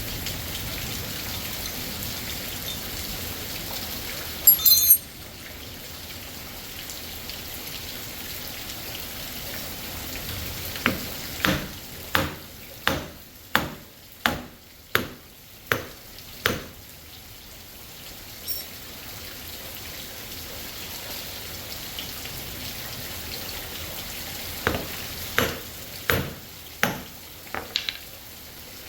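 Steady heavy rain, with a sharp clatter about four and a half seconds in and two runs of sharp knocks, about two a second, in the middle and near the end.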